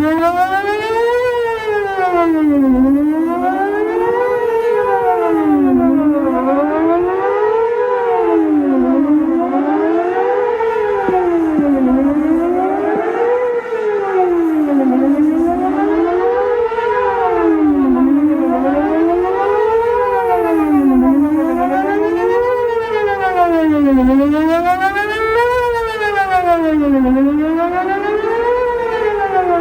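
Whelen WPS 4008 electronic outdoor warning siren sounding a fast wail during a test, its pitch rising and falling evenly about every two and a half to three seconds.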